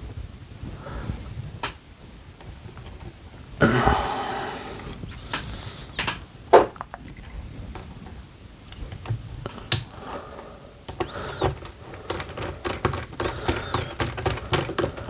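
Small RC car parts and hand tools being handled during reassembly: scattered clicks and taps, a short rustle about four seconds in, and a quick run of clicks near the end.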